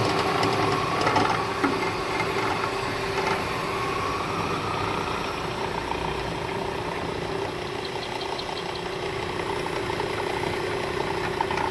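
Ellis 3000 metal-cutting band saw running with a steady hum from its three-phase motor and belt drive, while the variable-speed pulley is adjusted to slow the blade down.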